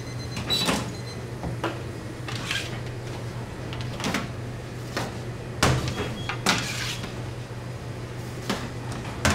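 Steady low machine hum in a bakery workroom, with irregular sharp knocks and clatters about once a second, the loudest a little past halfway.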